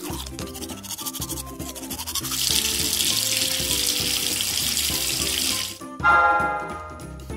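A toothbrush scrubbing, then from about two seconds in a tap running into a sink for about three and a half seconds, which stops suddenly. A short chime follows near the end, over light background music.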